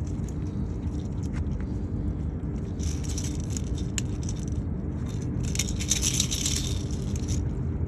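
Short bursts of rattling and scraping as a caught barracuda is handled and unhooked from its metal jig, with one sharp click about four seconds in, over a steady low rumble.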